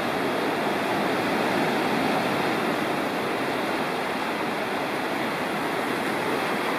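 Sea surf breaking and washing in over a stony shore: a steady, loud rush of water.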